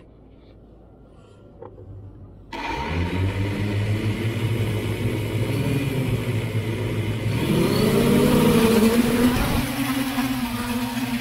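Small multirotor drone's motors starting abruptly about two and a half seconds in with a steady hum, then spinning up into a rising whine a few seconds later as it lifts off.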